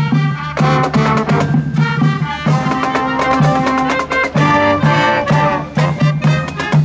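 School brass band marching in a parade, brass and drums playing an up-tempo piece over a steady drumbeat.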